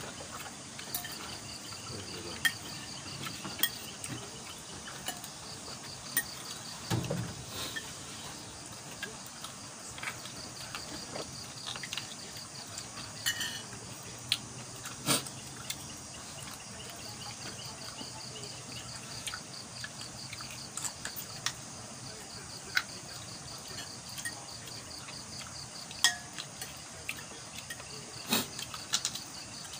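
Night insects trilling steadily in a fast, even pulse, with scattered clinks and taps of plates, bowls and spoons.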